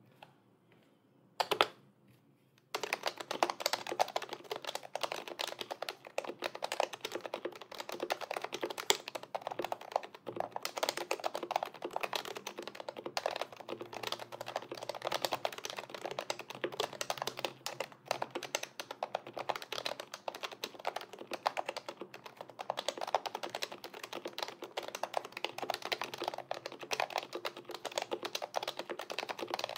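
Continuous fast typing on an HHKB Pro 2 Topre keyboard fitted with BKE Light V1 domes, lubed sliders and Deskeys silencing rings. A single louder knock comes first, and the steady run of keystrokes starts a little under three seconds in.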